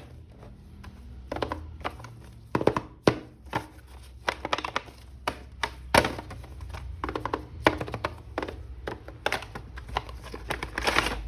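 Hands handling and unpacking an action figure's packaging: irregular clicks, taps and knocks, with a sharper knock about six seconds in.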